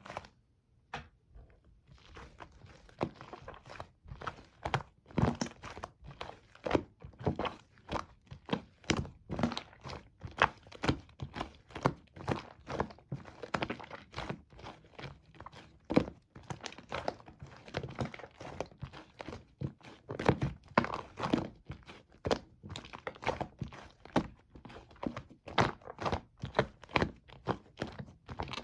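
Fluffy shaving-foam slime being squeezed and poked by hand, giving a steady string of short, sharp pops and clicks, about two to three a second, after a brief pause at the start.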